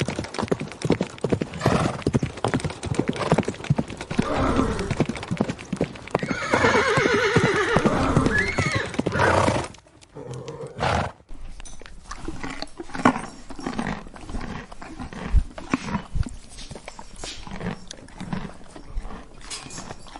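A horse calling several times, with one long whinny of about three seconds that ends abruptly about ten seconds in. After that, hooves clip-clop with a scatter of knocks.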